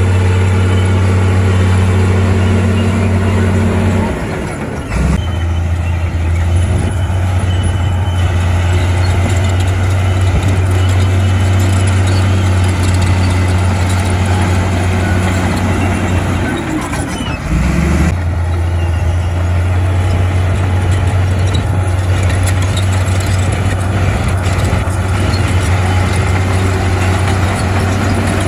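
Heavy diesel earthmoving machinery running steadily and loud, with a strong low engine hum that dips briefly about four seconds in and again about two-thirds of the way through.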